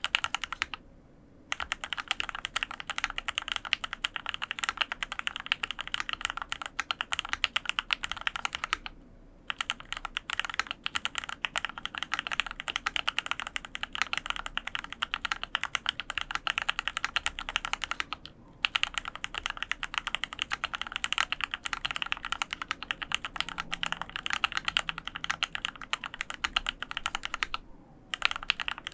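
Dolphin 2021 custom mechanical keyboard with Gateron Yellow KS-3X47 linear switches lubed with Krytox 205g0, an aluminum plate and foam dampening, typed on quickly and continuously. There are a few brief pauses of about half a second between runs of keystrokes.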